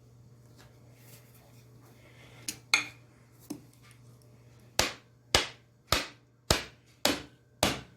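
Hammer blows setting a wedge into the top of an axe handle in the axe head's eye. Two sharp knocks and a lighter one come about two and a half to three and a half seconds in, then six steady blows about two a second from about five seconds in.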